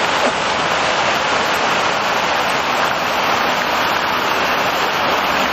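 Steady rushing of falling water, an even hiss without breaks.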